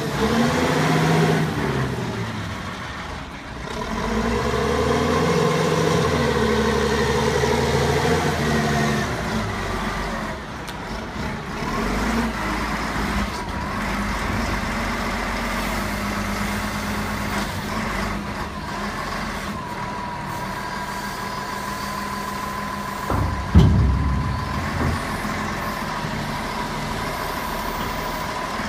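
Volvo BM L150 wheel loader's diesel engine running under hydraulic load as the bucket is raised and lowered, its pitch rising and falling in the first several seconds and then settling. A thin steady high tone joins about twenty seconds in, and a single heavy knock comes a few seconds later.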